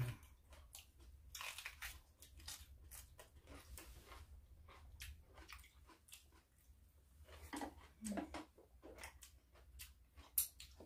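Raw vegetables being bitten and chewed: a crisp Korean green pepper (asak-i gochu) crunched at close range, many short irregular crunches.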